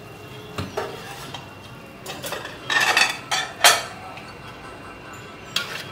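Dishes and metal utensils clattering and clinking as dishware is handled, in a series of sharp knocks with the loudest flurry about three seconds in.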